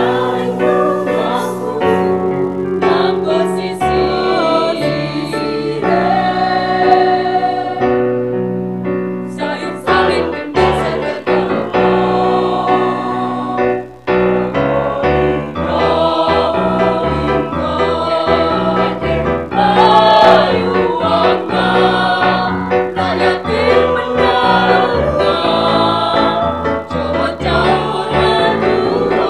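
A primary-school children's choir singing a song together, with keyboard accompaniment.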